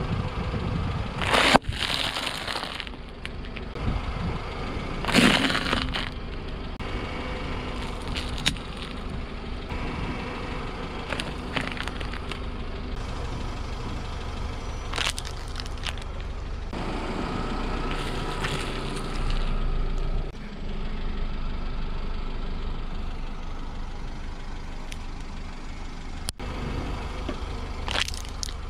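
A car tyre slowly rolls over and crushes plastic-wrapped snack packets, an instant noodle packet and candy packets, several times in turn, each time with a burst of crunching and crackling. Under it the car's engine idles with a steady low hum.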